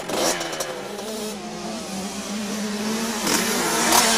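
Motocross bike engines running at high revs, their pitch rising and falling as the bikes accelerate, growing gradually louder.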